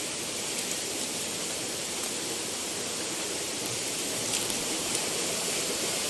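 Waterfall: a steady rush of falling water, an even hiss without pauses.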